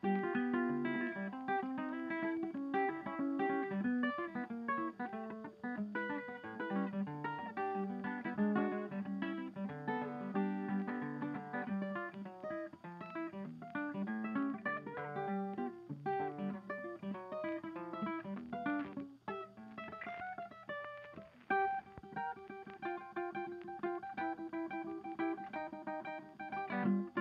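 Background music: acoustic guitar played in quick plucked notes.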